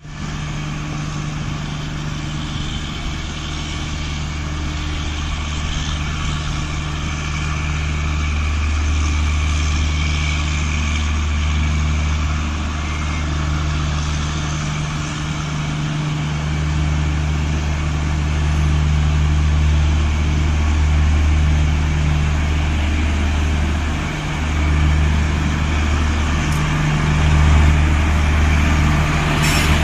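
WAP-4 electric locomotive moving off slowly with a train, a steady low hum that grows slightly louder, with one brief sharp sound near the end.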